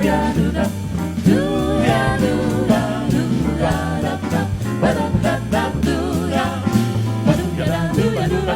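Live jazz music: voices singing with vibrato over a swinging bass and drum backing.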